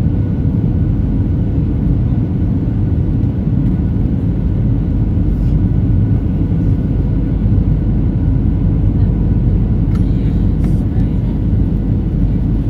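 Steady jet-airliner cabin noise heard from a window seat in flight: a constant low rumble of engines and rushing air, with a faint steady hum riding on top.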